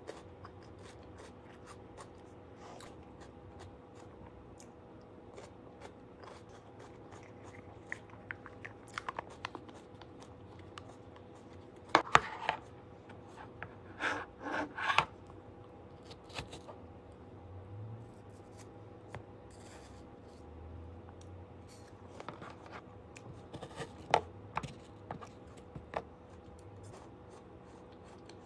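Sporadic eating sounds: crunchy bites and chewing of raw red bell pepper and apple slices, with light clicks and scrapes of plastic food containers on the table. A faint steady hum runs underneath.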